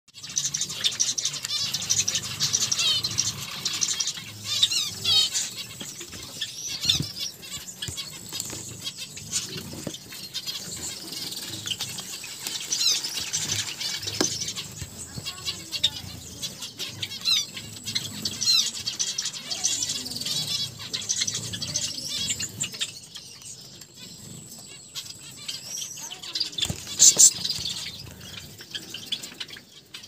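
Small finches chirping in rapid, high-pitched clusters of twitters, with a few sharp clicks and a louder burst near the end.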